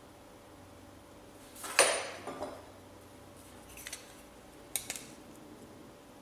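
Metal marking-out tools handled on a workbench: one sharp metallic clatter about two seconds in that rings briefly, then a few light clicks near four and five seconds as a steel square and scriber are set against the workpiece.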